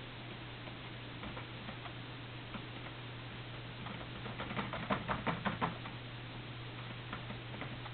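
Small clicks and crackles of someone eating a cheeseburger close to the microphone, with a quick run of sharp clicks about halfway through, over a steady low hum.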